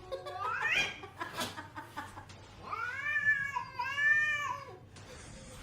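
Domestic cat meowing: a short meow rising in pitch at the start, then a long, drawn-out meow that wavers in pitch, beginning about two and a half seconds in.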